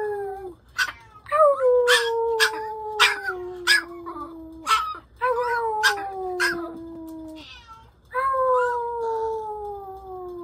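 A small dog howling along with a boy: three long drawn-out howls, each falling slowly in pitch, with short sharp yips between them.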